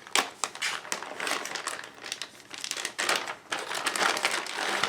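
Plastic packaging crinkling and rustling in the hands, in irregular crackles with small clicks, as bagged plastic ship miniatures from a board game expansion are handled and opened.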